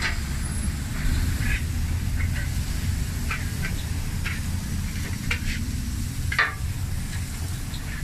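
Chopped meat sizzling on a street-stall taco griddle, with scattered short scrapes and taps of a metal spatula on the steel, over a steady low rumble.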